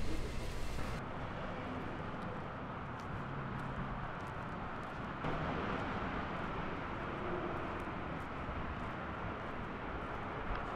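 Steady outdoor street ambience at night: an even hum of distant traffic, with a few faint ticks.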